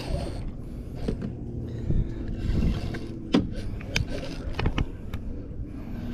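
A hooked fish being hand-lined in at the side of a boat: splashing and handling noise, with several sharp knocks and clicks in the second half, over a low rumble.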